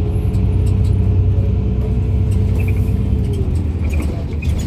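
Irisbus Citelis Line city bus with a Voith automatic gearbox, heard from on board: a steady deep drivetrain rumble with a whine that holds its pitch, then falls away about three seconds in.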